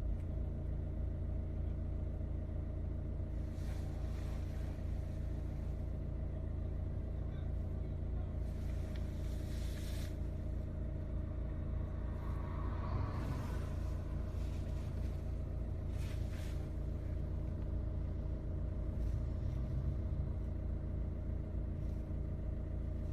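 A steady low mechanical hum and rumble, with a few brief swells of hiss over it.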